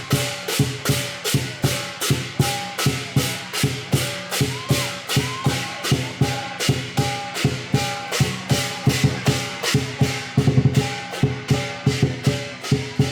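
Lion dance percussion: a large drum and clashing cymbals keep a steady beat, about three cymbal clashes a second, with a quicker run of drum strokes about ten seconds in.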